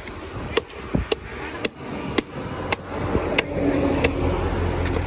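A heavy curved knife chopping into a tilapia on a wooden stump block: about eight sharp knocks, roughly one every half second. A passing vehicle's engine hum rises in the background about three seconds in.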